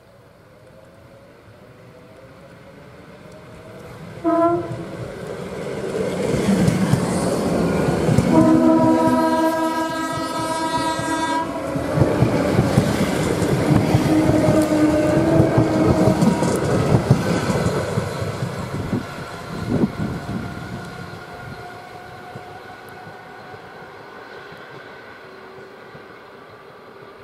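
An ED4M electric multiple unit sounds its horn, first a brief toot and then a long blast about three seconds long. It then runs past with a loud rumble and wheels clattering over the rail joints, and the sound fades away.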